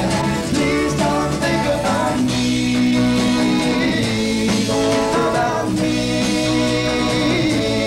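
Acoustic guitar strummed steadily under a man's voice singing long held notes with no clear words, in a live solo performance.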